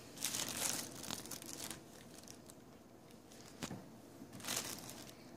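Plastic bubble wrap crinkling and rustling as a cat treads on it and gets tangled in it. The sound comes in uneven bursts: a long one over the first couple of seconds, then two shorter ones later.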